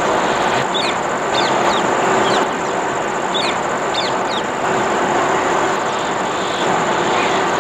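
Birds chirping in short, quick calls, about a dozen, mostly in the first half, over a steady rushing noise and a constant high-pitched whine.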